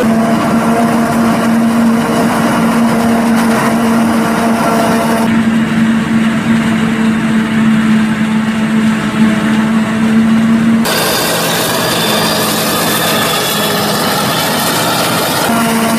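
Claas Jaguar 870 forage harvester with an 8-row Kemper maize header running under load while chopping maize: a steady machine hum with a whine over it. The sound changes abruptly about 5 and 11 seconds in.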